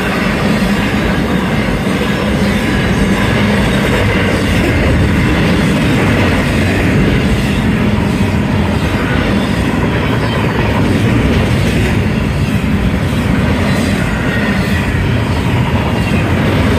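Union Pacific intermodal freight train of double-stack container cars passing at high speed: a loud, steady noise of steel wheels running on the rails.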